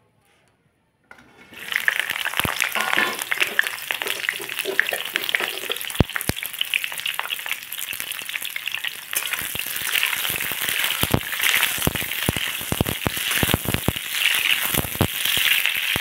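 After about a second of near silence, cauliflower florets go into hot oil in a kadhai and start frying with a loud, steady sizzle. Later on, a metal spatula stirs them, with frequent clicks and scrapes against the pan over the sizzle.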